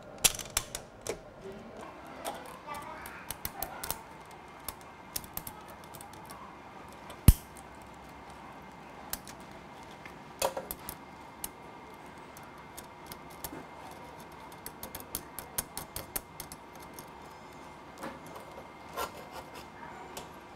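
Light clicks and scraping of metal parts as screws are turned to fasten a side dipole onto its bracket on a Yagi antenna's boom, with one sharp louder click about seven seconds in.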